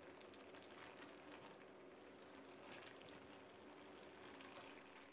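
Faint bubbling and small pops of a coconut-milk curry simmering in an aluminium pot.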